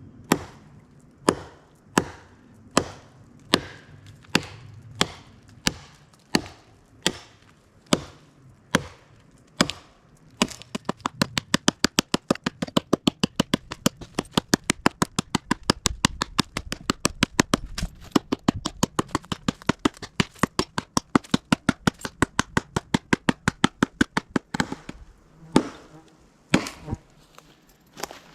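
A small axe chopping through a log: sharp, evenly spaced blows of the blade biting into wood. For about ten seconds the blows come roughly one every three-quarters of a second, then they run on much faster, about four or five a second, and near the end they slow to a few spaced strikes.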